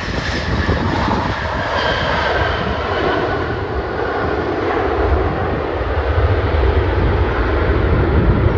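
Boeing 737-700's CFM56-7B jet engines on landing rollout just after touchdown: a steady jet roar with a deep rumble that grows stronger in the second half.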